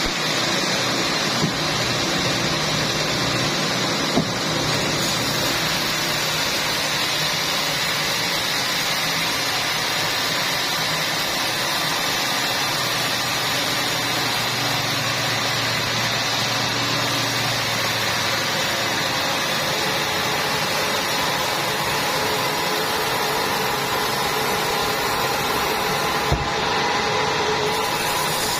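Sawmill machinery running steadily, a continuous mechanical noise with a few short knocks, about a second and a half in, four seconds in and near the end.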